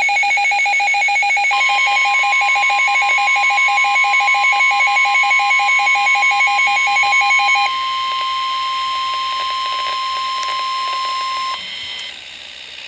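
NOAA Weather Radio's warning alarm: a steady high tone near 1 kHz that starts about a second and a half in and cuts off near the end, marking an incoming warning. For the first seven or eight seconds a rapid electronic beeping pulses over it.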